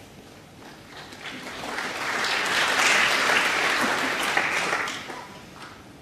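Snooker audience applauding a pot of the black, the clapping building about a second in and dying away near the end.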